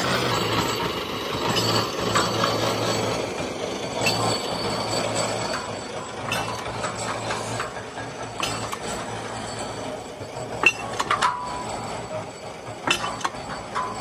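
Piling rig's motor-driven winch running in spells, a low steady hum that stops and starts several times. Sharp metal clinks come in the second half.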